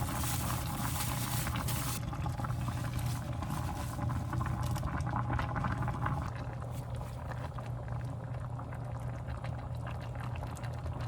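A pot of soup boiling hard on the stove, bubbling and crackling steadily over a low hum.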